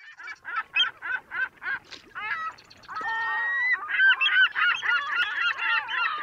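Geese honking: at first a quick series of single honks, about four a second, then from about three seconds in many overlapping honks from a flock.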